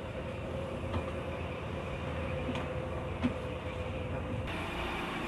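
Steady machinery drone inside a ship, with a few light knocks. About four and a half seconds in, a brighter hiss joins it.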